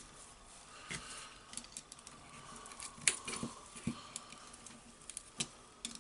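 Faint, scattered small metal clicks and scrapes of a pick working a spring ring into place on the front of a Makita rotary hammer's tool holder.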